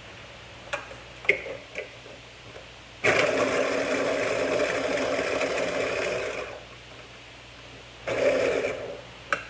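Small electric food chopper running as it chops cooked chicken breast: one steady run of about three and a half seconds, then a short second pulse near the end, with a few light knocks before the first run.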